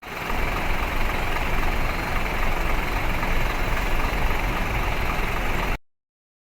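A truck's diesel engine running steadily at idle, ending abruptly near the end.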